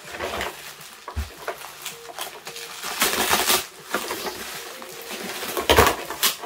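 Bubble wrap and plastic packaging rustling and crinkling as items are unwrapped by hand, loudest about three seconds in and again near the end.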